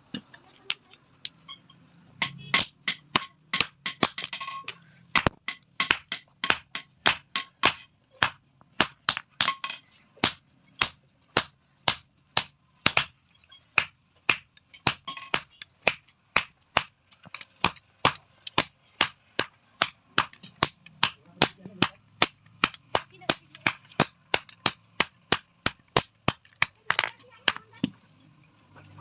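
Hammer striking steel on an anvil: a steady run of ringing metal blows, about two to three a second, that stops near the end.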